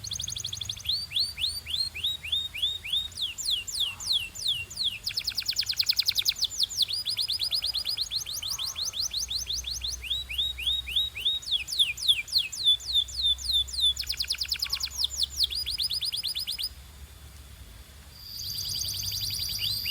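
Domestic canary singing: fast trills of short falling high notes, switching to a new phrase every second or two. There is a brief lull near the end, then the song resumes with a long, held high note under the trills.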